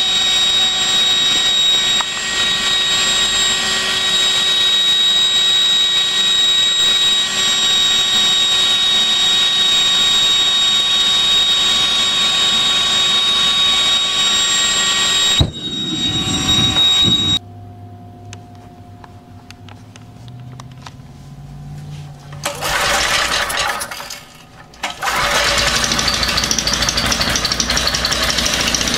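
A steady engine-like running sound with a constant high whine, broken about halfway by a single sharp bang: a blast of gas made from water. After a cut comes a quieter stretch, then in the last few seconds a small petrol engine running on water-derived gas.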